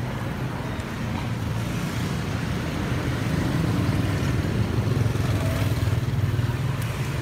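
Street traffic: a steady low engine rumble, as of motorbikes and cars running close by.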